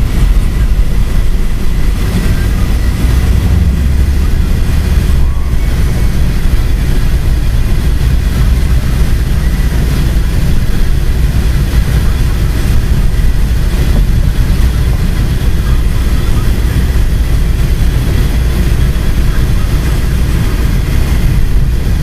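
Car driving on a snow-covered road, heard from inside the cabin: a steady low rumble of engine and tyres.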